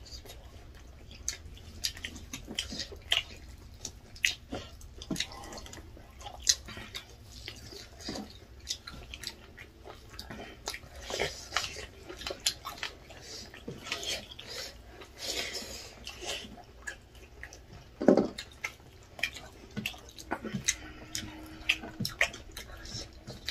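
Close-up eating sounds: wet chewing and lip smacks with scattered small, irregular clicks as two people eat rice and chicken drumsticks with their hands.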